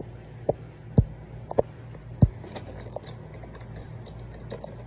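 Plastic Lego bricks being handled: a few sharp knocks in the first couple of seconds, then a run of light plastic clicks.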